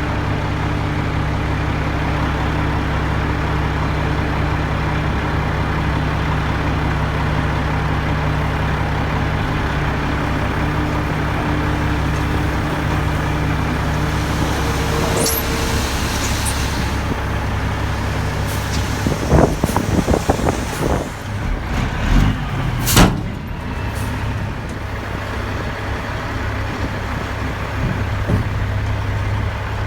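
Heavy dump truck's diesel engine running steadily, then a cluster of knocks and rattles past the middle and one sharp loud bang, after which the engine note drops lower.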